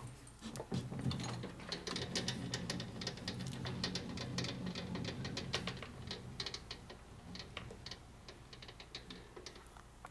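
Light metallic clicks and rattles of a transmission gear and hand tools being handled and adjusted, over a low steady hum that fades out about six seconds in.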